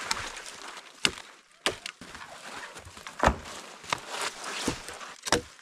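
Dry dead branches snapping with sharp irregular cracks, about six in a few seconds, over the rustle of brushy twigs being pulled and handled.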